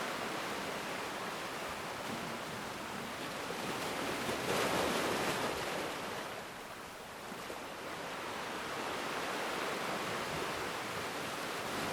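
Ocean waves breaking and washing up a black sand beach, a continuous surf wash that swells as a wave breaks about four seconds in, eases off, then builds again.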